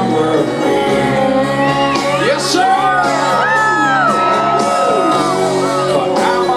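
Live rock band playing a slow song with singing, and crowd members shouting and whooping over the music, their glides rising and falling in the middle.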